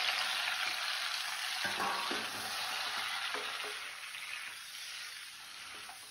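Chopped tomatoes sizzling in hot sesame oil in a kadai while being stirred with a wooden spatula. The sizzle is loudest at first and slowly fades, with a few soft knocks of the spatula against the pan.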